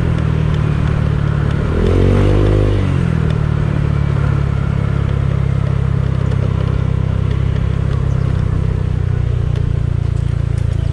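Honda Click 125 scooter's single-cylinder engine, fitted with an aftermarket Exos X6 exhaust, given a short blip of throttle about two seconds in that rises and falls back, then idling steadily.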